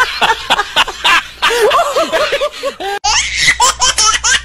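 Loud laughter in repeated short 'ha-ha' bursts, each rising and falling in pitch. About three seconds in it cuts abruptly to a higher, faster burst of laughter.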